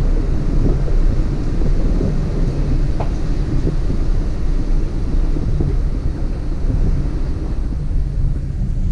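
Hummer H2 driving along a rough dirt trail, heard from a camera mounted on its hood: a steady low rumble of engine and tyres with wind buffeting the microphone.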